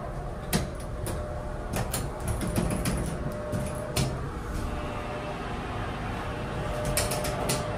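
Mowrey elevator car buttons clicking as they are pressed, several times, over a steady low rumble from the elevator as its doors slide shut.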